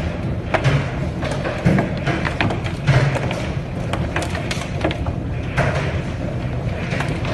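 Hailstones pounding hard surfaces in a dense, irregular barrage of sharp hits and thuds, with no letup.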